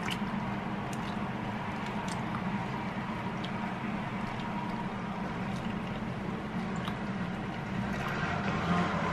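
Pot of pork-rib broth simmering on the stove with a steady rushing bubble, as a metal spoon stirs spinach into it and ladles broth over the leaves, clicking lightly against the pot a few times.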